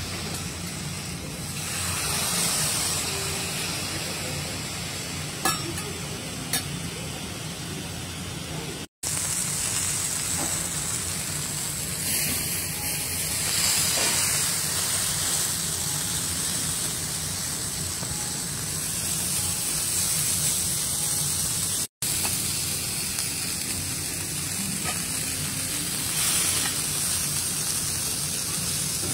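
Beef steaks sizzling steadily on a hot teppanyaki griddle, with two short sharp clicks about a second apart near the start. The sound breaks off for an instant twice.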